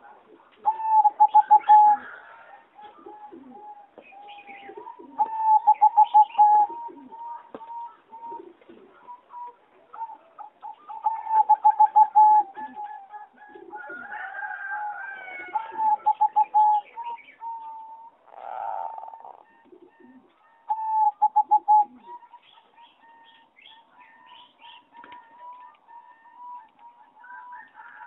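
Zebra dove of the competition-bred singing line singing its fast staccato cooing song: about five loud phrases, each a rapid run of short coo notes, with softer coos and higher chirps between them.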